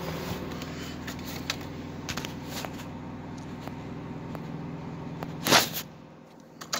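Rustling and light knocking inside a vehicle cab over a steady low hum, with one loud thump about five and a half seconds in and a sharp click near the end.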